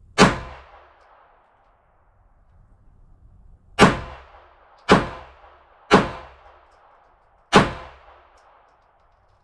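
Five shots from a Polish P-64 pistol in 9x18 Makarov: one, then after a pause of about three and a half seconds four more, roughly a second apart, each with a short echoing tail.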